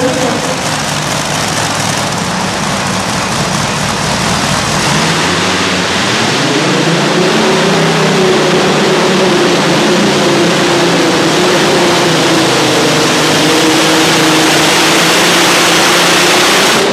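Light Modified pulling tractor's racing engine running loud, then revving up about five seconds in and held high and steady at full throttle under the load of the weight-transfer sled.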